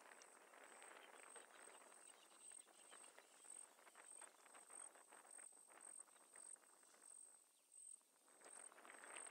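Faint insect chirping: a high, thin pulse repeating evenly about twice a second, over quiet open-air background with soft scattered rustles.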